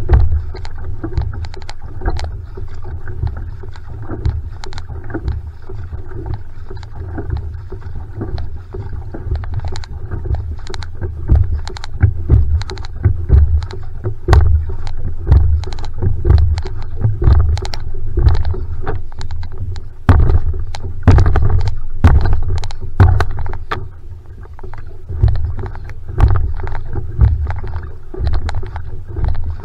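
Single outrigger canoe (va'a) being paddled at a steady pace: rhythmic paddle strokes splashing in the water over a constant low rumble of water on the hull.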